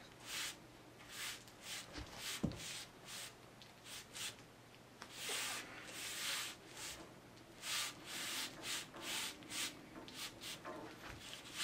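A hand rubbing and pressing a sheet of backing board down onto glued foam core: a string of short, irregular swishes, with a single knock about two and a half seconds in.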